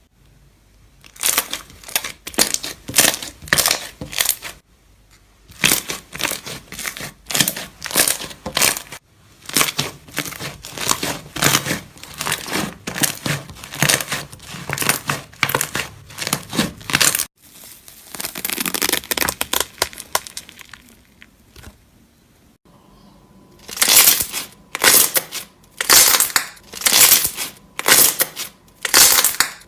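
Slime squeezed and pressed by hand, making crackly, squelching pops in quick repeated strokes. The strokes come in runs of a few seconds, broken by short pauses, with a smoother stretch partway through.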